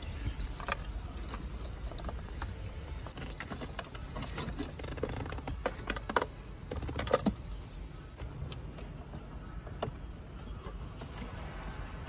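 Car wiring harness and plastic plug connectors being handled behind an opened dashboard: scattered light clicks, taps and rustles, a few sharper ones past the middle, over a steady low rumble.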